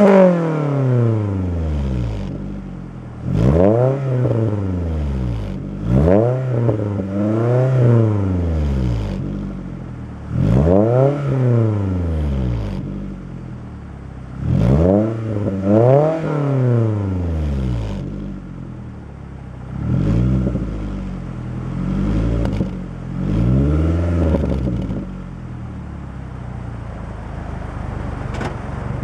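2011 Scion tC's 2.5-litre four-cylinder engine revved in place through a Descendant aftermarket exhaust. It gives a series of short throttle blips, often two close together, each rising and falling back. It settles to a steady idle near the end.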